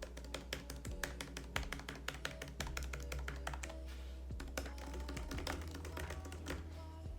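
Typing on a thin wired aluminium Satechi keyboard: a quick, uneven run of low-profile key clicks, over background music.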